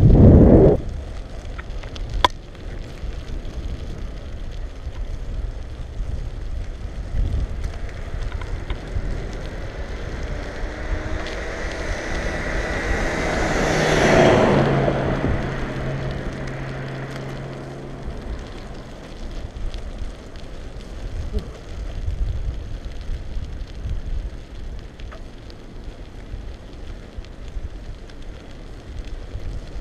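Riding noise of a bicycle on pavement, picked up by a handlebar-mounted GoPro: a steady low rumble of wind on the microphone and the bike rolling. About halfway, a passing vehicle swells up with a low hum and fades away. A sharp knock right at the start.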